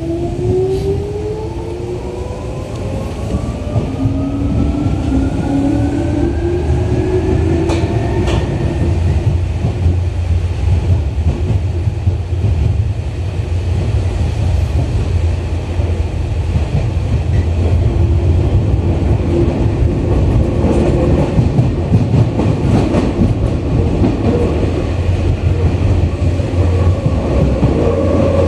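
Tokyu 8500 series electric train heard from inside the car as it pulls away in a subway tunnel. A whine of several tones climbs in pitch for about the first eight seconds as it gathers speed, then gives way to a steady running rumble of wheels on rail.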